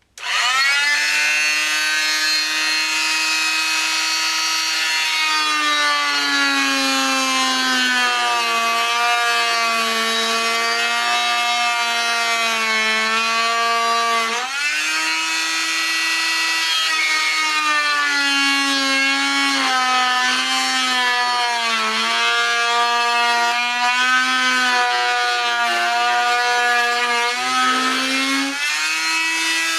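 Harbor Freight oscillating multi-tool with a round 270 saw blade cutting through wood trim. It is switched on and runs as a loud, steady buzzing whine. Its pitch sags when the blade is pushed hard into the cut and jumps back up when the pressure eases, about halfway through and again near the end.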